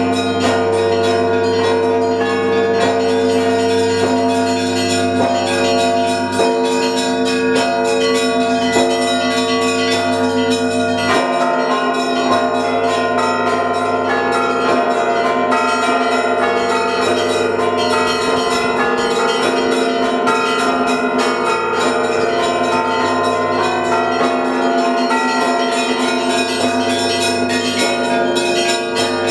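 Russian Orthodox bell ringing from the Trinity-Sergius Lavra belfry, calling to the evening service: many bells struck together, small bells in quick, dense strikes over the steady hum of the large bells. The pattern shifts about eleven seconds in, when the deepest tone drops away and then sounds again.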